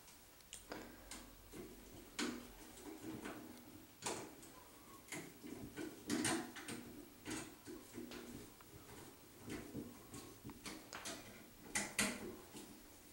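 Irregular small clicks, taps and knocks from a temporary light fixture being handled and unscrewed from a wall electrical box, with a few louder knocks among them.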